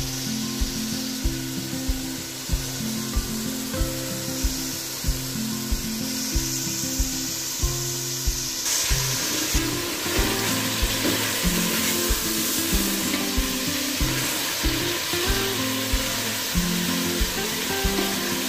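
Mutton pieces sizzling as they fry in hot oil at high flame, growing louder about nine seconds in, with a spatula stirring the meat in the second half. Background music with a steady beat plays over it.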